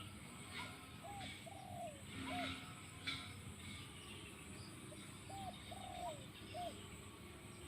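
Spotted dove cooing in two phrases. Each phrase is a short note, a longer falling note, then another short note. Small birds chirp faintly in the background.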